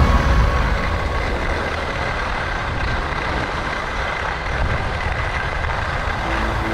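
Steady rushing noise with a deep rumble: wind on the camera and skis running over groomed snow at speed. Faint sustained music tones run underneath.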